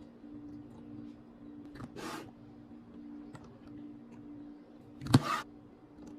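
Items being handled while restocking a mini fridge: a few light clicks, a short rustle about two seconds in, and a sharp click with a brief rustle about five seconds in, over a steady low hum.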